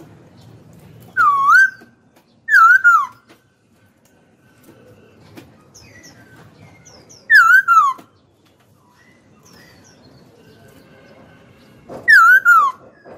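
Caged black-throated laughingthrush singing: four loud, clear whistled phrases, each a quick falling slur of about half a second, with a few softer short notes between them.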